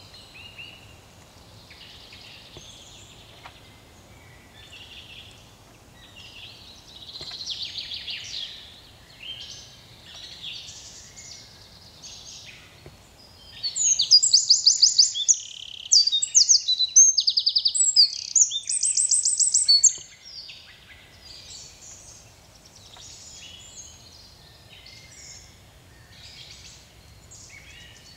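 Songbirds singing and calling over a faint low rumble, with one loud song of fast high trills at several pitches from about 14 to 20 seconds in.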